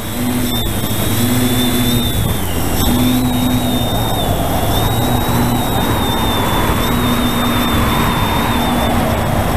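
Multirotor drone's electric motors and propellers running in flight, heard from a camera carried aloft: a steady high whine that wavers and dips briefly about two and a half seconds in, over a rush of wind and a low hum.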